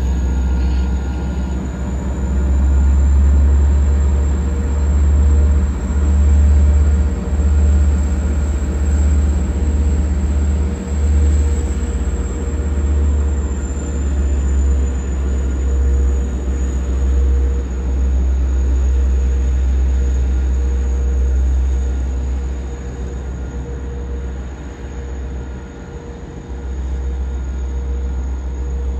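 LIRR DM30AC diesel locomotive's EMD 12-710 engine running as the one-car train pulls away. There is a strong deep rumble, a steady hum and a high whine that rises slightly and then eases back about halfway through. It grows quieter toward the end as the train recedes.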